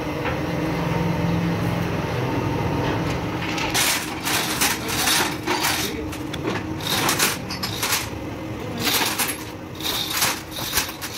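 Metal clanking and clattering, irregular sharp knocks and scrapes of steel parts and tools that start about four seconds in, over a steady machine hum that fades as the clanking takes over.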